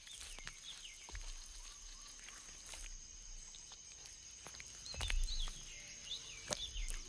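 Faint outdoor nature ambience: a steady high-pitched tone, a few short chirps and scattered soft clicks, with a dull low bump about five seconds in.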